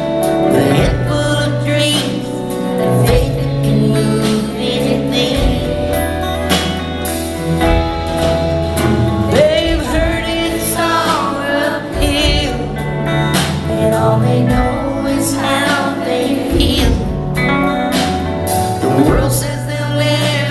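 Live country band playing, electric guitar and bass among it, with a woman singing lead vocals over the music.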